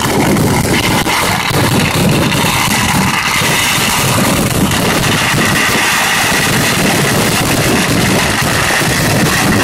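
Kerala temple-festival fireworks (vedikettu) firing in a dense barrage: a rapid string of firecracker bangs and crackles running together into one loud, continuous din.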